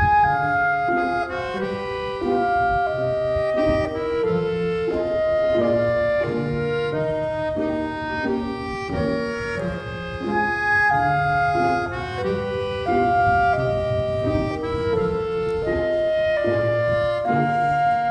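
Instrumental background music: a melody of held notes that change about every half second to second, over low bass notes.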